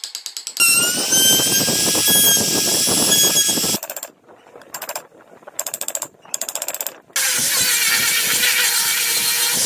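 Power tools working wood. A motor-driven tool runs under load with a whine from about half a second in and stops near four seconds. Short bursts follow, then a second loud spell of hissing noise begins about seven seconds in.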